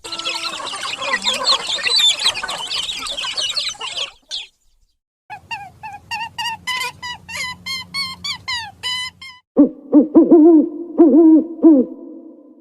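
A run of bird calls in three separate bursts. First comes a dense chorus of many small birds chirping at once for about four seconds. After a short pause there is a fast series of short, repeated, clear notes, and then lower arching hoots repeated several times.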